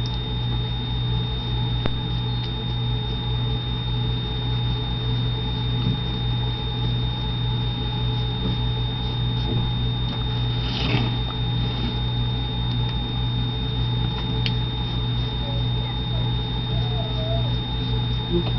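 Steady electrical hum with a thin high whine, over which a 1-inch flat brush faintly strokes chalky paint onto a glass jar. A soft brush sound about halfway through, a light click a few seconds later, and a few small squeaks near the end.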